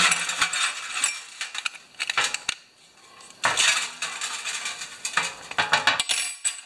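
Metal tools and a carburetor clinking and rattling against a steel parts pan as wrenches are picked up and set down and the carburetor is handled, in about four bursts of clatter.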